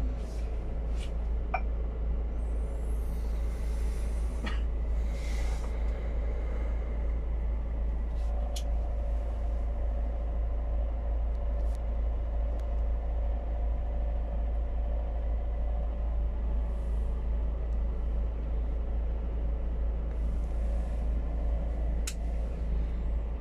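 Cab interior of a Scania P280 truck with its biogas engine running, a steady deep rumble and drone from the engine and drivetrain. A brief hiss of air comes a few seconds in, and a few light clicks sound from the cab.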